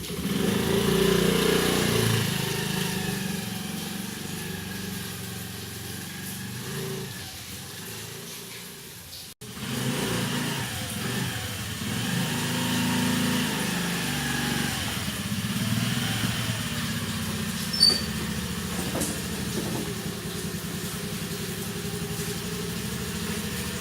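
Motor scooter engine running while riding, its pitch shifting up and down; the sound breaks off abruptly about nine seconds in and starts again.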